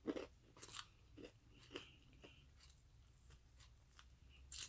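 A person chewing crispy fried chicken: soft, irregular crunches and mouth clicks, with one louder crunch near the end.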